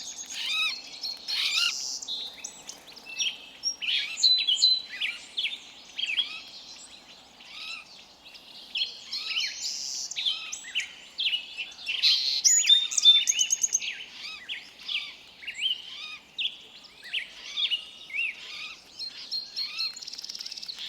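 A chorus of forest birds chirping and calling over one another in a steady stream of short, high chirps, quick glides and trills.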